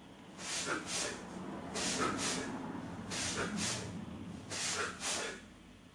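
Sharp, hissing breaths out through the nose in time with air-punching: four pairs of quick exhalations, one pair for each cross punch, about a second and a half apart.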